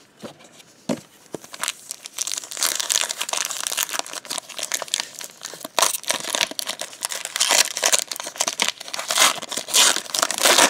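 Foil wrapper of a trading card pack crinkling and tearing as it is pulled open by hand. A few scattered crackles come first, then a dense run of crinkling from about two seconds in.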